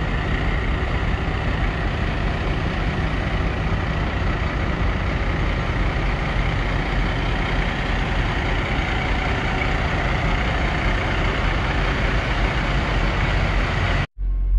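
Steady rumble of idling diesel trucks, with a faint high whine over it. Near the end it cuts out for an instant and a deep, steady low hum takes over.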